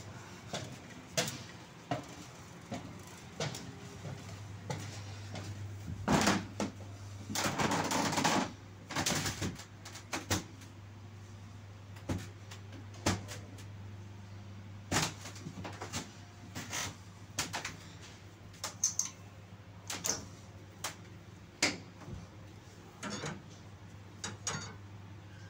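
Irregular sharp knocks and clicks, about one or two a second, over a steady low hum. A short rush of noise comes about a third of the way in.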